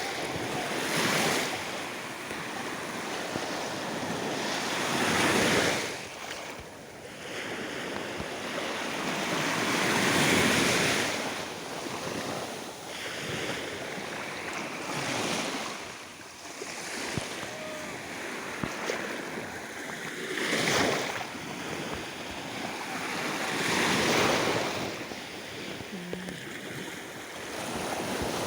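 Small waves on a calm sea washing onto the shore in slow surges, one every four to five seconds, with wind buffeting the microphone.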